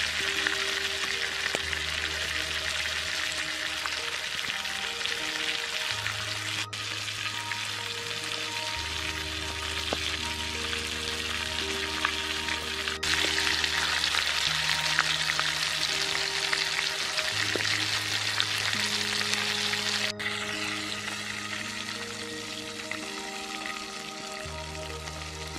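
Battered chicken legs deep-frying in hot oil, a dense, steady sizzle and crackle of bubbling oil. Soft background music with long held notes plays underneath.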